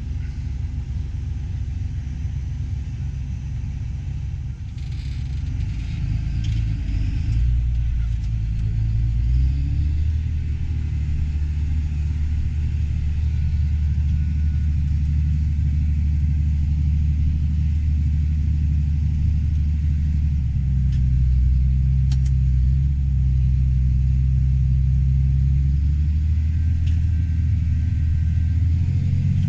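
Farm harvest machinery running steadily with a deep rumble, growing louder about eight to ten seconds in.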